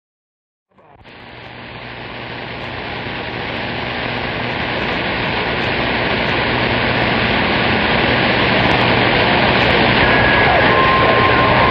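CB radio receiver static on the 11-metre band, a steady rushing hiss that fades in about a second in and grows louder throughout. Near the end a couple of faint steady tones come through the noise.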